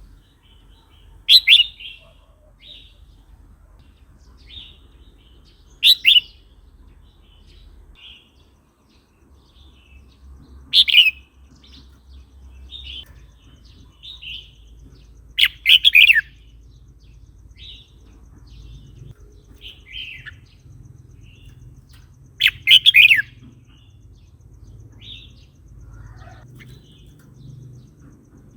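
Red-whiskered bulbul singing: short, loud phrases repeated about every five seconds, with softer chirps in between.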